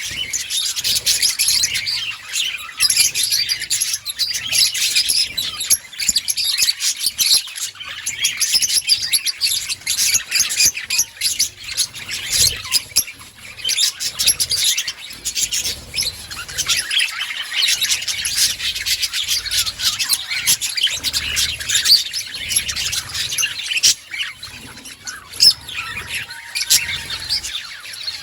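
A colony of budgerigars chirping and warbling together, a dense, continuous chatter of many overlapping calls.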